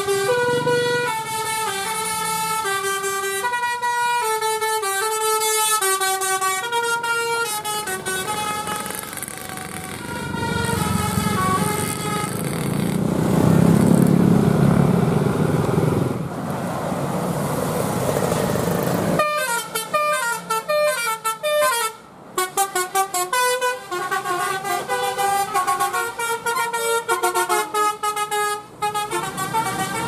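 Tour bus telolet horns, multi-tone air horns playing quick stepped melodies. In the middle a bus engine rumbles loudly as it passes. About two-thirds through, another horn melody starts abruptly.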